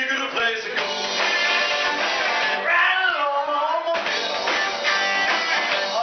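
Live rock band playing, with electric guitars and drums, and a sliding note about three seconds in.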